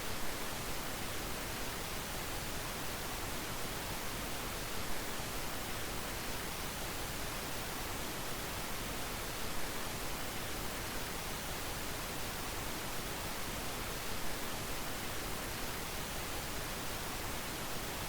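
Steady hiss with no other distinct sound: the recording's own noise floor.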